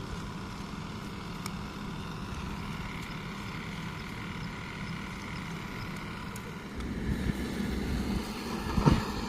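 An engine running steadily, growing louder about seven seconds in, with a single sharp knock near the end.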